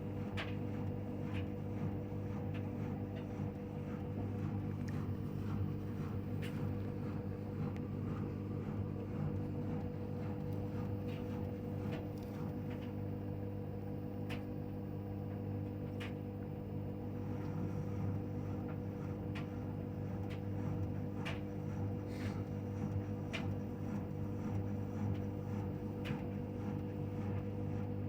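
LG front-loading washing machine spinning at a steady speed in its cotton-programme spin cycle, set for 1200 rpm, with a constant hum and occasional light clicks.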